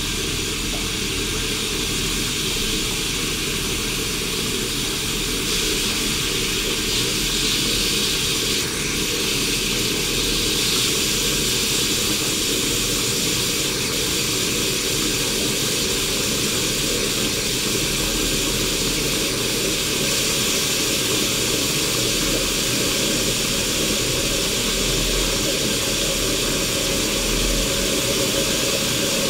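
East German Kaffee Boy K500 coffee machine brewing, with a steady hiss of steam and boiling water and a low rumble underneath.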